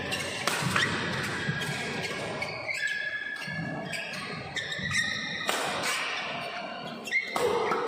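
Badminton doubles rally in a hall: sharp racket strikes on the shuttlecock and players' feet thumping on the court, a few seconds apart.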